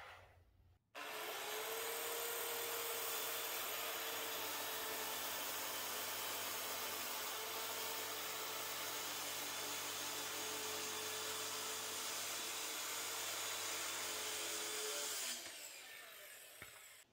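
Corded circular saw starting up and cutting steadily through 3/4-inch plywood, its motor holding one even pitch through the cut. It stops near the end.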